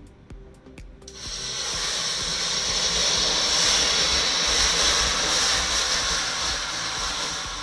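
Chemical reaction flaring into a fountain of sparks and flame, with a loud steady hiss. The hiss sets in suddenly about a second in, holds, and slowly dies down near the end.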